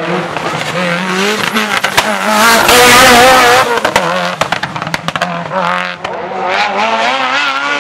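Racing car on a hillclimb, engine revving hard and changing pitch as the driver works the throttle through the gears, with wavering tyre squeal and many sharp cracks. It is loudest about three seconds in as it passes closest.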